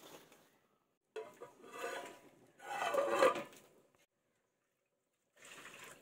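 Metal plate lid scraping against a clay cooking pot, in two long rubbing strokes about a second and three seconds in, with a fainter scrape near the end.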